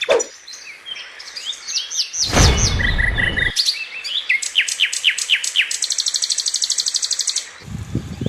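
Songbirds chirping and calling outdoors: a string of short, sliding chirps and a fast, even trill near the end. A loud rush of low noise lasts about a second, some two seconds in.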